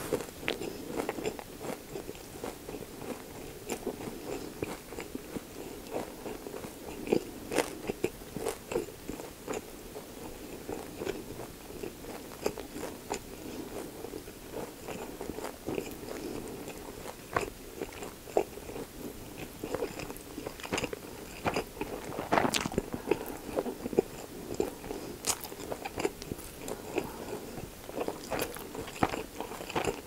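Close-miked chewing of a mouthful of pork belly gimbap made with seaweed, rice, lettuce and pickled radish: irregular crunches and wet mouth clicks, several a second, with a few sharper crunches along the way.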